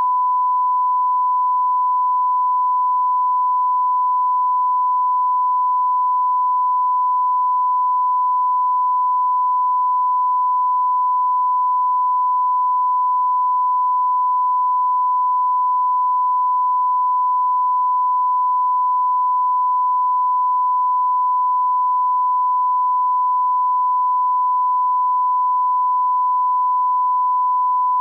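Broadcast line-up test tone played with colour bars: a single steady, pure, unbroken beep at one constant pitch and level.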